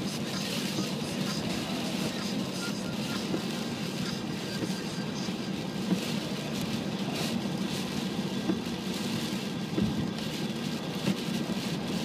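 Steady cabin noise of a car driving on a rain-soaked road in heavy rain: tyre spray and road noise with wind buffeting outside, broken by a few brief knocks.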